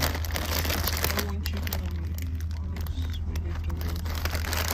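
Plastic instant-noodle packets crinkling as a hand picks them up and handles them, a dense run of small crackles over a steady low hum.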